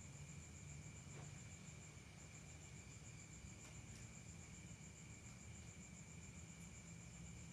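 Faint, steady high trill of crickets, pulsing fast and evenly, over a low background hum.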